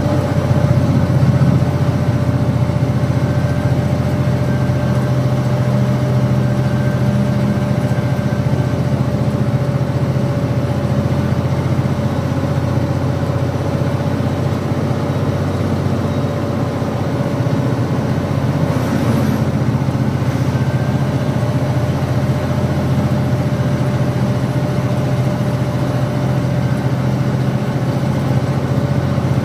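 Loaded lorry's diesel engine pulling slowly uphill in low gear, heard from inside the cab. It is a steady drone with a steady whine above it: the truck is straining under about 15 tonnes on a ghat climb.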